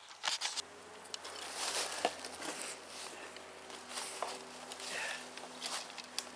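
Shovel digging into soil: a run of irregular scraping, crunching strokes, with a faint steady low hum underneath from about half a second in.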